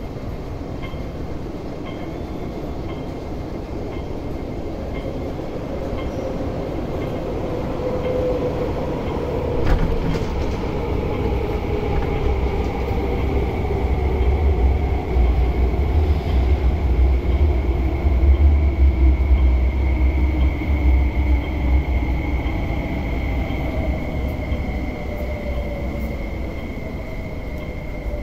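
An MTR West Rail Line electric train runs into an underground station and brakes to a stop. The rumble builds to its loudest about halfway through as the cars pass, and the motor whine falls slowly in pitch as the train slows.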